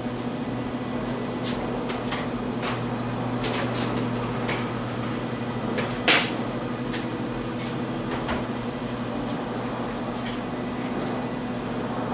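Light clicks and knocks of a plastic bucket being handled on a scale bench while weighing glaze powder, with one sharper knock about six seconds in, over a steady electrical hum.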